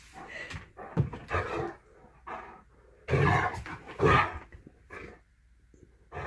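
A Great Dane and a cat sparring on a wooden floor: a few short animal vocal noises in bursts, the loudest two about three and four seconds in.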